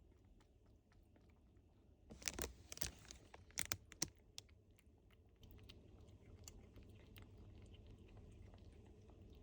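Munchkin kitten crunching dry food: a burst of sharp crunches between about two and four seconds in, then faint scattered clicks.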